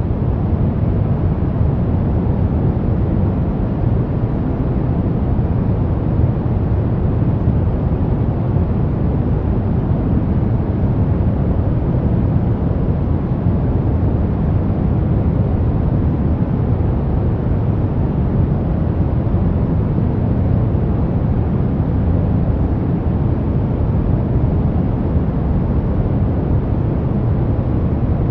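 A loud, steady low rumbling noise with no pitch, heaviest in the bass and unchanging throughout.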